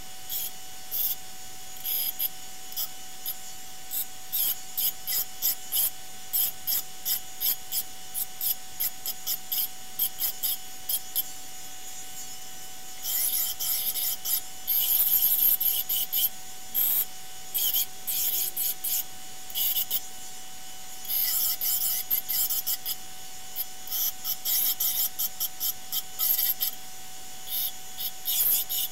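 Belt grinder with a small-wheel attachment running with a steady whine while stainless steel sheet edges are pressed against the belt in many short passes, each a hissing grind. This is the rounding-off of the buckler's edges.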